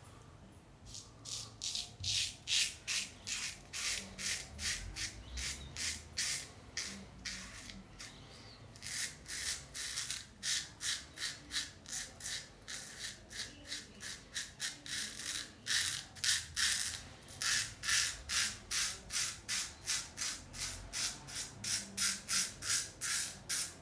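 Shaving brush being scrubbed over the face to work up shaving-soap lather. It makes rhythmic, scratchy strokes about two a second, with a short pause partway through.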